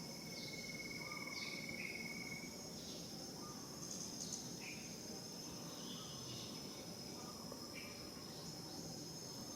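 Outdoor insect chorus: a steady high-pitched drone, with an evenly pulsed trill for the first couple of seconds and short chirps scattered throughout.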